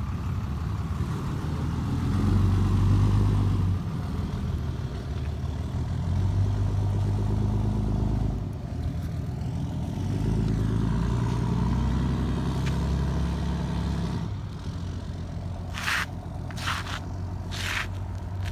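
Wind buffeting the phone's microphone in an uneven low rumble that swells and eases. Near the end come four short, sharp scrapes of shoes scuffing on asphalt.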